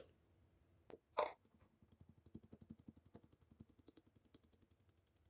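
Flour being sifted through a handheld mesh strainer into a plastic bowl. There are a couple of light knocks at the start, with one louder knock about a second in, then a fast run of faint, even taps as the strainer is tapped to shake the flour through, fading toward the end.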